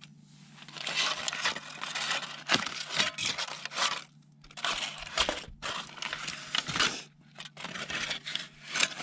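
Aluminium foil crinkling and rustling as foil packets are unwrapped and pulled apart with metal tongs in a cast-iron skillet. It comes in stretches, with short pauses about four seconds in and again about seven seconds in.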